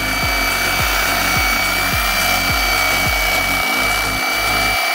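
American Angler electric fillet knife running steadily with a high, even motor whine while its reciprocating blade slices flat along a flounder's backbone to debone it.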